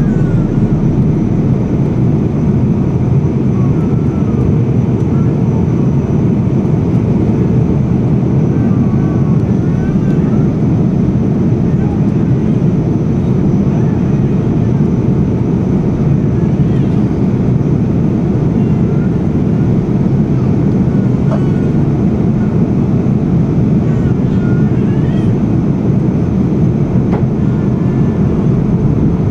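Airliner cabin noise in flight: a steady, loud roar of engines and airflow heard from inside the passenger cabin.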